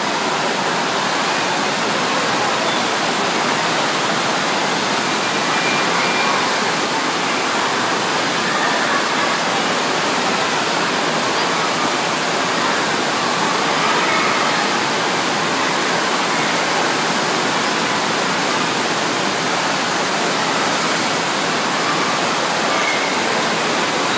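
FlowRider surf simulator running: its pumped sheet of water rushes steadily up the padded slope with a loud, constant rush.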